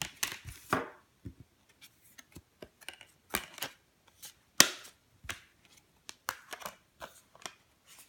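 Handling noises of a Blu-ray steelbook case: an irregular run of sharp clicks and taps with short rustles. The loudest click comes about halfway through.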